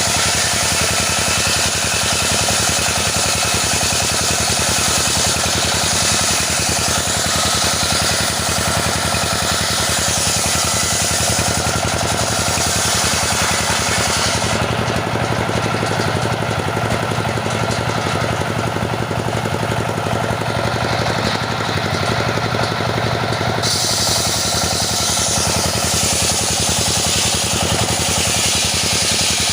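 Petrol-engined saw running continuously while sawing teak. About halfway through the high hiss falls away for around nine seconds while a lower engine tone grows stronger, then the hiss comes back.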